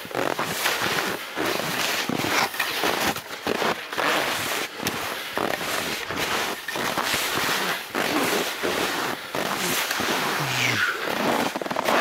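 Skis crunching and squeaking over hard-packed, frozen snow on a snowmobile track, a dense run of irregular crackles.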